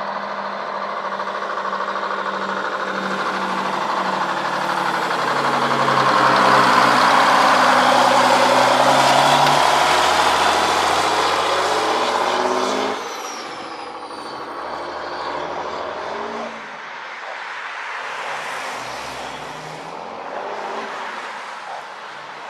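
1963 GMC Crackerbox's turbocharged inline 6-71 Detroit Diesel two-stroke engine pulling the cabover tractor down the road. It grows louder as the truck comes close and is loudest a third of the way in, then drops suddenly about halfway to a fainter sound of the truck pulling away farther off.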